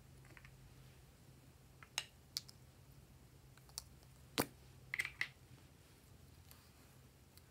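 Short sharp clicks from two gold lipstick tubes being handled and their caps pulled off: about six clicks spread over a few seconds, the loudest a little past the middle, over a faint steady hum.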